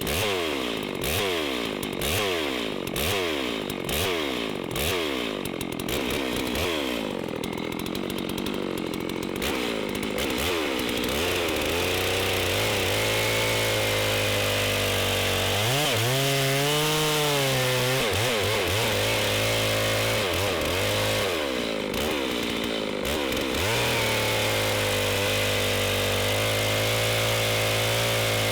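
Brand-new Holzfforma G660 two-stroke chainsaw being run in, revved up and down about once a second, then held at high revs while cutting wood, its pitch sagging briefly twice.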